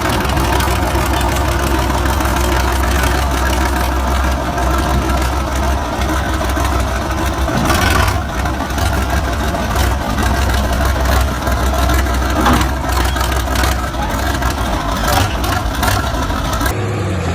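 Heavy bulldozer diesel engine running steadily, with a few metallic clanks. The sound changes abruptly near the end.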